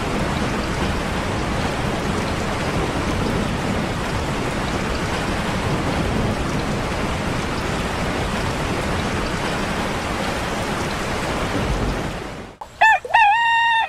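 Steady rain falling, ending abruptly about a second before the end. It is followed by a few loud, short pitched calls.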